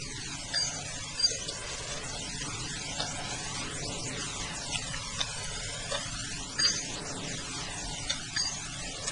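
Steady static hiss with a few faint short clicks scattered through it.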